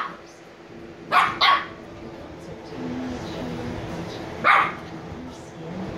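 Shiba Inu puppy barking in short, sharp yaps: two quick barks about a second in and a single bark near the end.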